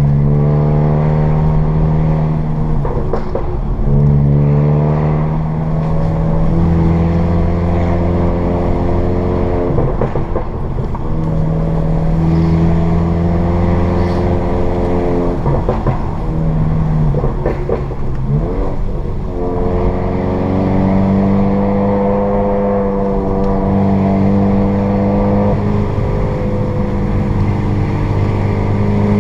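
Tuned Mk7 GTI's turbocharged 2.0-litre four-cylinder engine running through a Borla catback exhaust, with APR Stage 2 crackle tune. The engine note holds steady for a few seconds at a time and steps up and down in pitch several times, with short crackles at some of the changes.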